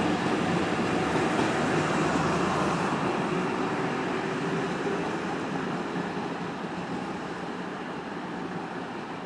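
JR Kyushu 813 series electric commuter train running away down the line. Its motor tones and the noise of its wheels on the rails fade steadily as it goes.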